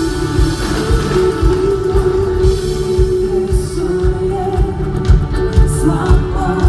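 Band music: guitar over a steady drum beat, with a singing voice.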